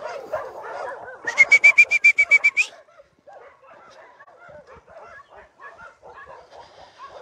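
Dogs whining and yelping, with a loud, rapid run of about ten sharp high-pitched calls between one and three seconds in, then fainter scattered calls.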